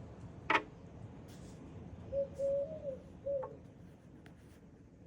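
Eurasian collared dove cooing once, its three-note coo-COO-coo with the middle note held longest, starting about two seconds in. A sharp click sounds about half a second in.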